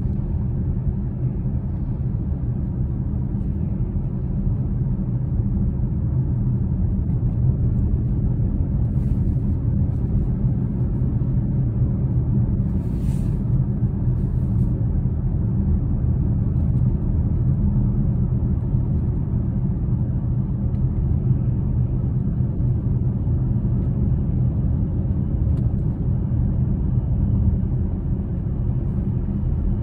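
Steady low rumble of a car travelling at highway speed, engine and tyre noise heard from inside the cabin.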